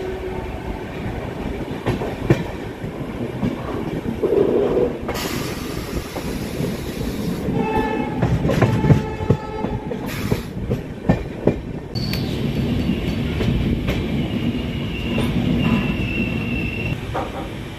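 Passenger train running on the rails, with rumble and wheel clatter on the track. Its horn sounds for about two and a half seconds roughly halfway through.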